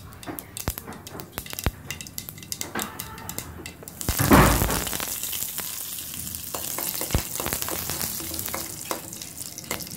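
Mustard seeds popping and crackling in hot oil during a tempering. About four seconds in, fresh curry leaves hit the oil with a loud burst of sizzling, which then settles into a steady sizzle with scattered pops.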